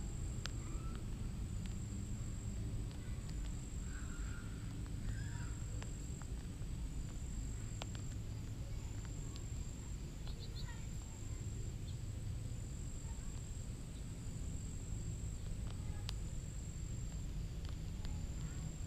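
Outdoor yard ambience: a steady low rumble, with a thin high-pitched tone that pulses on and off about once a second. A few faint chirps and scattered light clicks sit over it.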